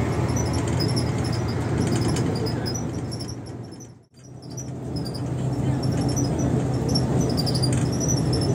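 Volvo bus running on the road: a steady low drone with faint high squeaks. It fades out to silence about four seconds in and fades back up.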